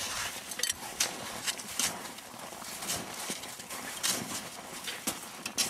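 Shovel digging into packed snow: a run of short, irregular crunching scrapes and chops, several per few seconds.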